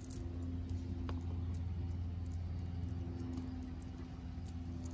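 A steady low hum, with a few faint light clicks of metal jewelry being handled.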